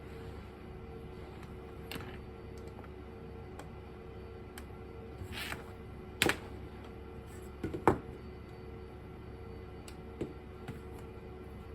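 A few scattered handling clicks and knocks as cables and connectors are plugged into small steel converter boxes, the two loudest sharp clicks coming about six and eight seconds in, over a faint steady hum.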